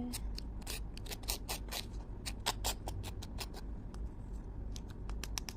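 Light, irregular tapping and scratching of a tool's tip against the Magic Mixies Mixlings toy container as powder is spread around inside it, several small clicks a second.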